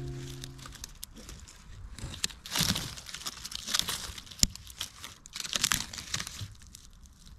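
Rustling and crackling of dry leaves and twigs on a forest floor, in irregular bursts, with a sharp snap about four seconds in.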